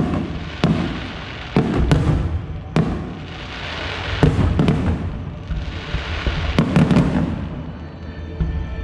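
Aerial firework shells bursting one after another: several sharp bangs, each trailing a low rumble, with stretches of hissing crackle between them.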